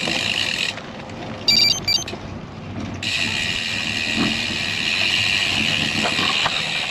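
Road bike's rear freehub buzzing steadily while coasting, over a low rumble of tyres and wind. The buzz cuts out about a second in and starts again about three seconds in, with a brief high two-part chirp in the gap.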